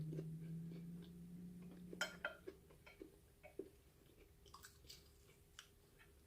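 Close-miked chewing and mouth sounds from eating a breakfast of fried plantain, egg and bread, with a louder bite or crunch about two seconds in and scattered small wet clicks after. A low steady hum runs under the first two seconds.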